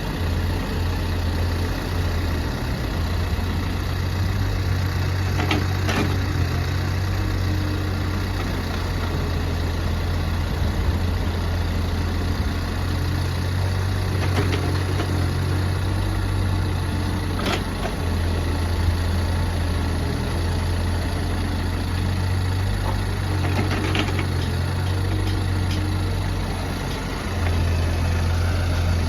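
Diesel engine of a JCB 30plus mini excavator running steadily while loading a tipper truck, broken by a few short sharp knocks, about five over the stretch.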